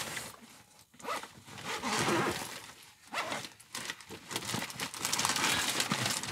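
Rummaging: several bursts of rustling and scraping as things are handled and moved about.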